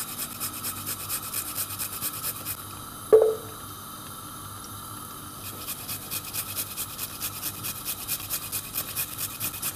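A garlic clove rasped on the fine side of a small metal hand grater in quick, even strokes, about four a second. The strokes pause for a few seconds in the middle, with one short knock about three seconds in.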